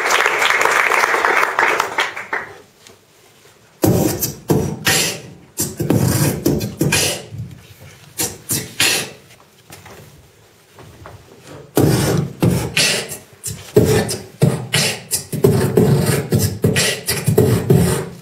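Audience applause dying away, then after a short pause a man beatboxing into a microphone: sharp percussive mouth sounds in an uneven rhythm, softer for a while past the middle and loud again near the end.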